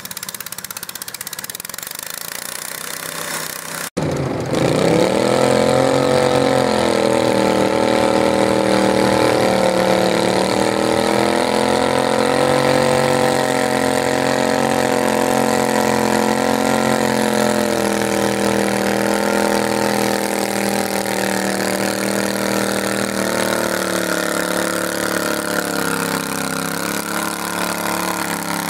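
Garden tractor engine running steadily, then after an abrupt cut about four seconds in, a louder garden tractor engine revs up and runs hard at high revs, pulling the sled. Its pitch wavers a little and sags slowly near the end as the load builds.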